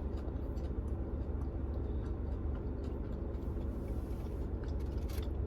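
Steady low hum with faint scattered clicks.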